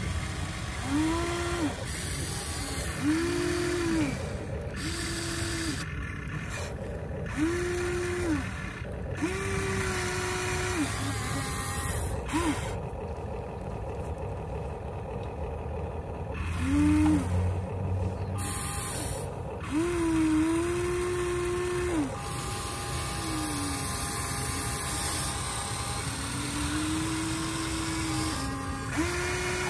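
Electric motors of a Huina 1593 RC excavator whining in short spurts as the boom, arm and bucket move: about a dozen separate whines, each rising, holding a steady pitch and then falling away. A louder low hum comes about halfway through.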